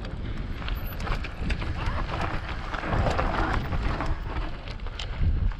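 Wind noise rumbling on an action camera's microphone, with scattered crunching and clattering of stones and gravel on a rocky mountain trail.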